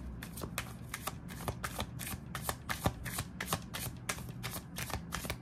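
A tarot deck being shuffled by hand, cards pulled off the deck from hand to hand, making a quick, even run of light card clicks about four or five a second.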